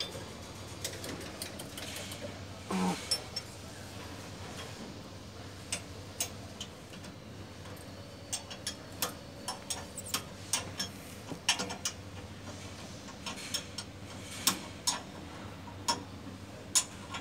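Irregular sharp metallic clicks and taps of hand tools at work on a travelator's handrail drive machinery, over a low steady hum.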